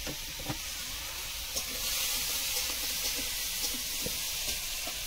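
A steady high hiss that grows a little louder about two seconds in, with a few faint knocks.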